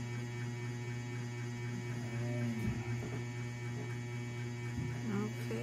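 Steady low electrical hum, a mains-frequency buzz with faint higher overtones.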